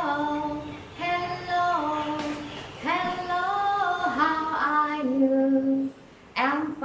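Unaccompanied singing in high voices, with held notes that step up and down in pitch and a brief pause near the end.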